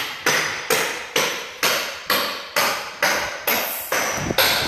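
Hammer blows struck at a steady pace, about two a second.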